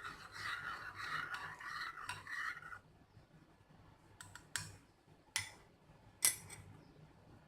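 A plastic packet crinkling and being snipped with scissors for about three seconds, then four sharp clicks, the last the loudest.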